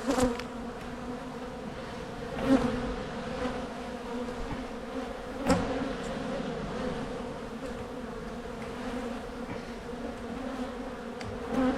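Honey bees from an open hive humming steadily, a low even drone. A few brief knocks stand out above it, the loudest at about two and a half and five and a half seconds in.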